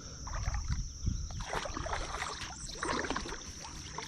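Irregular splashing and sloshing of creek water as a hooked softshell turtle is pulled in at the surface, over a steady insect trill.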